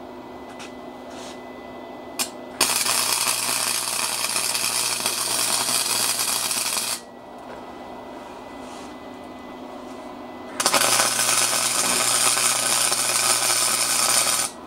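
Small budget electric arc welder welding a steel adapter plate: a steady crackling sizzle for about four seconds, a pause of a few seconds, then a second run of about four seconds, with a low electrical hum under each.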